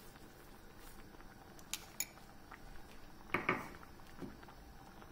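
Light clicks and clinks of kitchen utensils against metal cookware, with two sharp clicks a little before two seconds in and the loudest clatter about three and a half seconds in. A softer knock follows.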